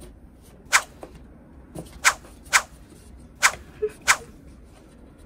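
A series of six short, sharp clicks, irregularly spaced over about three and a half seconds.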